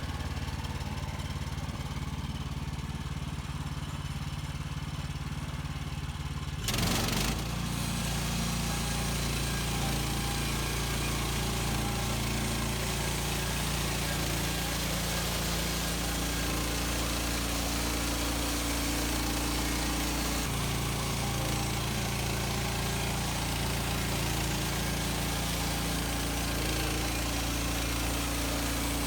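Woodland Mills HM130 Max portable bandsaw sawmill's engine running steadily; about seven seconds in it surges briefly, and from then on it runs at a higher, steadier note under load with a hiss added, as the band blade saws through a red pine log.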